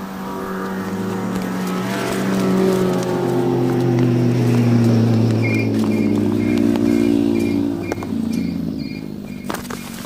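A motor vehicle engine passing on a road, swelling to its loudest about halfway through and then fading away.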